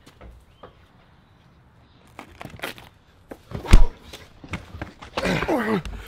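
A loud thump as a man is slammed against a house's wall, followed by the man groaning in pain with a falling pitch.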